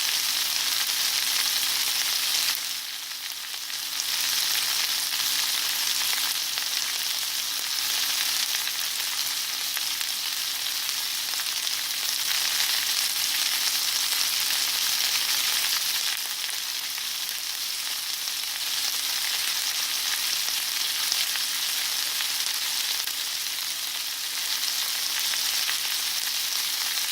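Steak sizzling as it cooks: a steady hiss that dips briefly about three seconds in.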